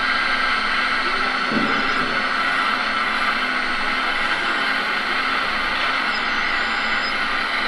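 Hydraulic pump of an RC model Liebherr 946 excavator running steadily as the machine digs, with a short low knock about a second and a half in as the bucket works the dirt and stones.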